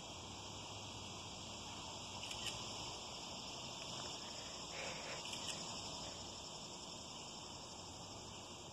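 Faint, steady high-pitched chorus of insects such as crickets. Two short soft noises come about two and a half and five seconds in.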